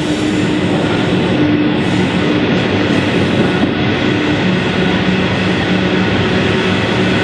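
Loaded coal hopper wagons of a long freight train rolling steadily past on the rails: a continuous rumble of wheels on track with a faint steady hum running through it.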